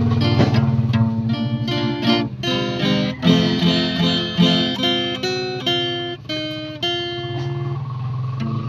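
Acoustic guitar music: a quick run of plucked notes over a steady low tone, thinning out to a few held notes near the end.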